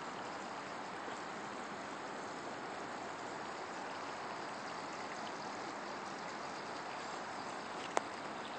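Steady, even rushing noise like running water, with a single sharp click about eight seconds in.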